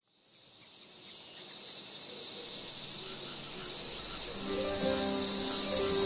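Insect chorus, a dense high chirring, fading in from silence. Music with held low tones comes in over it about four seconds in.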